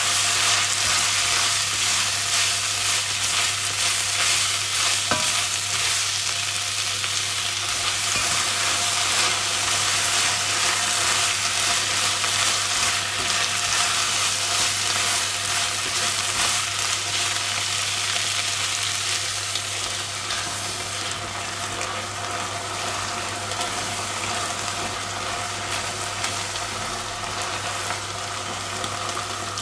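Onions, peppers and tomato paste sizzling in a hot enamelled pot just deglazed with cabbage cooking water, while a wooden spoon stirs through them. The sizzle is steady and eases off slightly toward the end.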